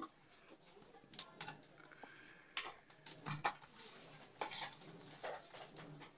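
Irregular light taps, clinks and short scrapes of hands and bangles against a steel plate as a potato filling is mashed and mixed by hand, over a faint low hum.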